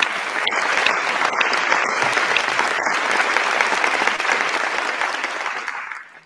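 Crowd applause played as a recorded effect: dense, steady clapping that fades out near the end.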